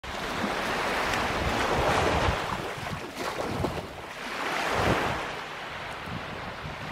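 Small waves breaking and washing up a sandy shore, swelling twice, with wind rumbling on the microphone.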